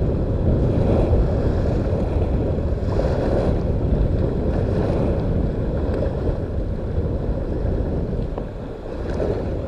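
Steady wind rumbling on the microphone over the wash of water.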